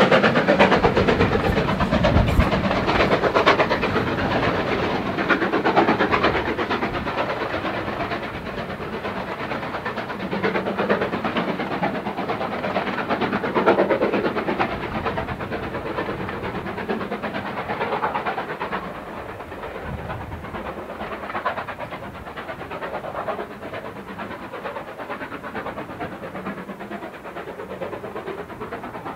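Steam-hauled passenger train pulling away: the locomotive working hard and its coaches rolling along the track, the sound fading as the train draws off into the distance.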